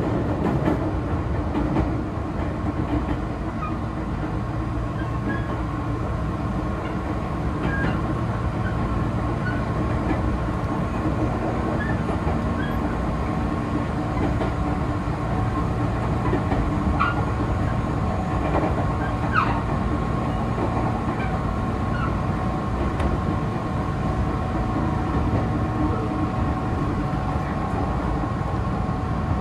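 Meitetsu electric train running, heard from inside the driver's cab: a steady rumble of the wheels on the rails under a steady hum, with occasional faint clicks.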